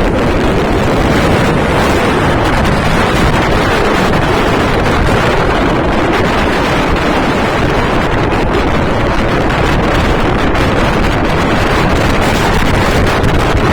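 Strong gale buffeting the microphone, a loud steady rumbling wind noise with no letup.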